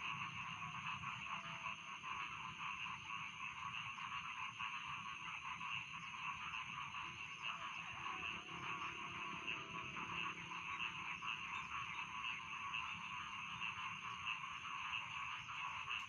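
Chorus of rice-field frogs croaking continuously, many calls overlapping into a dense, steady din.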